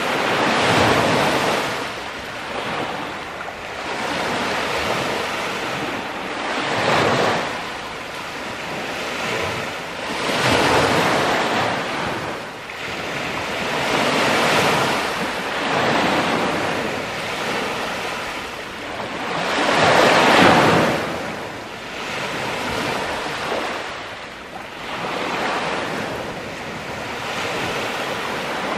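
Small lake waves washing up over a pebble beach, the rush of water swelling and fading every few seconds, the biggest wash about two-thirds of the way through.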